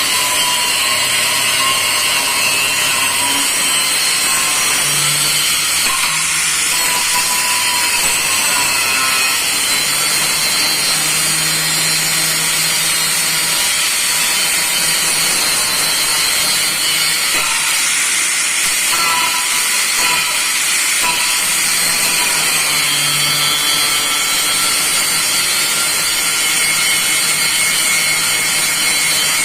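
Electric hand grinder running at full speed, its cutting disc grinding through a piece of material with a steady, loud, high-pitched hiss.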